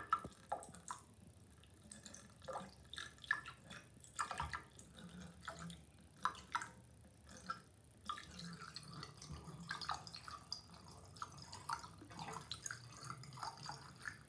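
Liquid drain cleaner poured in a thin stream from a plastic jug into a bathtub drain, faintly trickling and dripping in irregular splashes.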